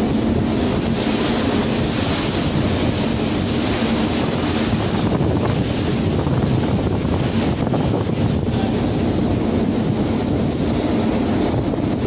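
Wind blowing across the microphone over the steady rush of a rough, stormy sea.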